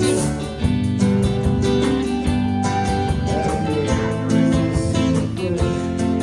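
A live band playing an instrumental stretch of a song, with strummed guitar to the fore.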